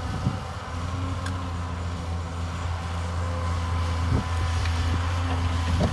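Caterpillar 320 hydraulic excavator's diesel engine running steadily under load as it swings a full bucket of soil over a dump truck, with a single knock about four seconds in.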